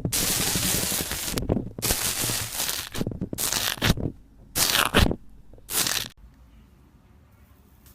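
Slime being squeezed and pressed by hand close to the microphone, crackling and crunching in about five bursts, stopping abruptly about six seconds in.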